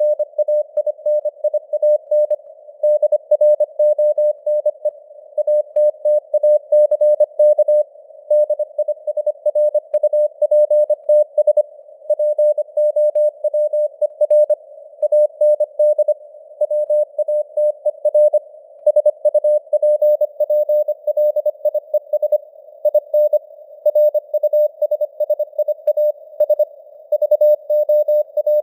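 Morse code (CW) sent at 25 words per minute: a single tone of about 600 Hz keyed on and off in quick dots and dashes, spelling out text. It sits in a narrow band of simulated radio receiver noise, as heard from a shortwave radio.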